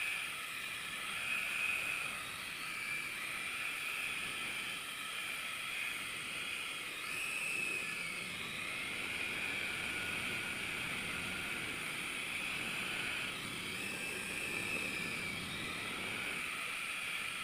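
Small electric toy RC helicopter's motors and spinning rotor blades, held in the hand: a steady whine with a faint hiss of air that swells and eases slightly a few times as the throttle changes.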